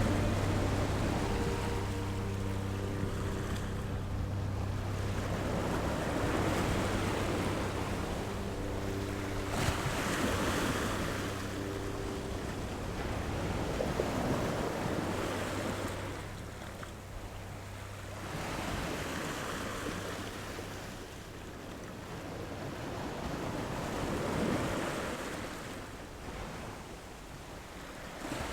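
Ocean waves rolling in and washing up on the shore, the surf swelling and ebbing every few seconds. Under it a low steady hum with faint held tones fades out about halfway.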